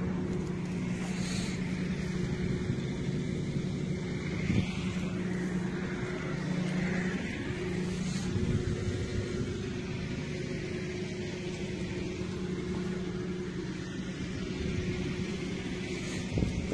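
A steady engine drone with a low rumble, and brief hissy gusts of wind on the microphone now and then.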